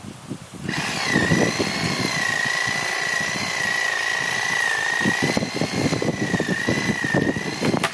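Battery-powered Ryobi reciprocating saw (Sawzall-type) starting up about a second in and cutting steadily through a small tree trunk. Its motor whine wavers slightly with the rasp of the blade, and it stops just before the end.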